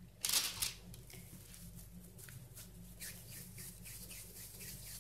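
Faint handling sounds of soft poğaça dough being pinched off and rolled between the hands, with a brief louder rustle just after the start as a dough ball is set down on the baking-paper-lined tray. A low steady hum runs underneath.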